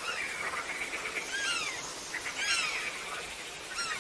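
Bats calling: a continuous chatter with several chirps that rise briefly and then glide down, about one a second.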